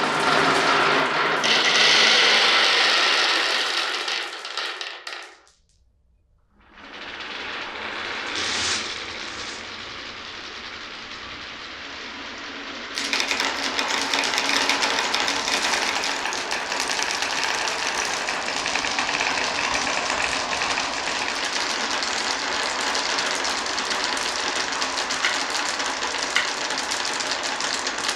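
Marbles rolling and clicking along a marble run's wooden and plastic tracks. The sound comes in edited sections: a short break about six seconds in, then a steady dense clatter from about thirteen seconds in.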